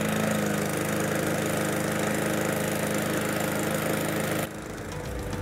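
Cobra M41C push mower's 98.5cc Cobra DG350 petrol engine running steadily just after being pull-started. The sound drops abruptly about four and a half seconds in.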